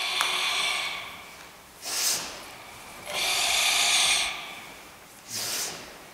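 Forceful ibuki breathing of Kyokushin Sanchin kata. Long hissing breaths alternate with short sharp ones: three long breaths, with a short one about 2 s in and another about 5 s in.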